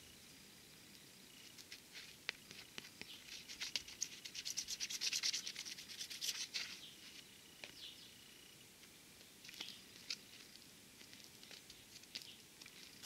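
Shattered 9H glass screen protector crackling and ticking under fingers pressing and rubbing over it: a dense run of small crackles in the middle, then a few scattered ticks.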